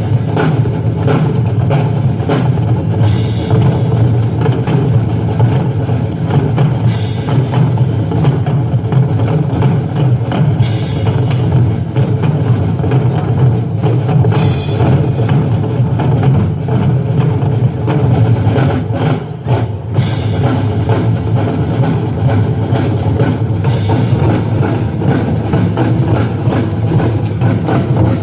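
Loud live band music driven by a drum kit, with a heavy bass drum and a cymbal crash every few seconds.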